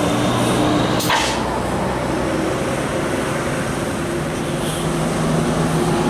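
Tour coach's diesel engine running as the bus passes close by, a steady low drone, with a sharp click about a second in.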